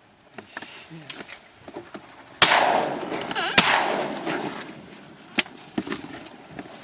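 Two shotgun shots about a second apart, each trailing off in a long echo.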